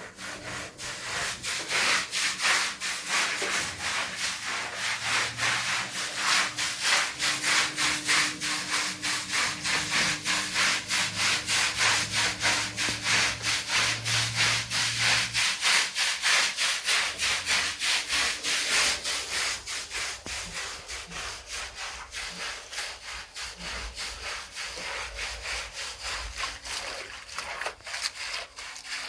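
Rapid back-and-forth rubbing against a hard surface, about three strokes a second in a steady rhythm, a little softer in the last third.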